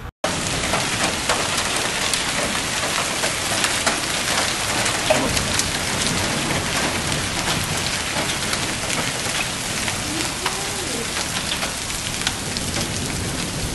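Hail and heavy rain pelting down in a violent storm: a loud, dense hiss packed with sharp little ticks of stones striking the ground and nearby surfaces.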